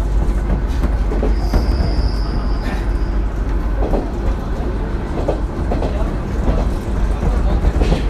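JR Kyushu Seaside Liner diesel railcar running, heard from inside the cabin: a steady low rumble with wheels clicking over rail joints. A thin, high, steady tone sounds for about a second and a half near the start.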